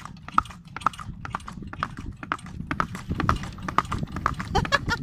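Hooves of a miniature horse pulling a cart clip-clopping on asphalt in a brisk, regular rhythm, about four or five hoofbeats a second.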